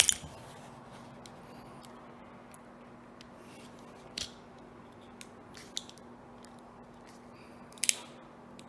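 A few sharp, separate clicks and snaps as a DJI Mavic Mini battery's plastic casing is pried apart by hand, the loudest at the start and near the end, over a faint steady hum.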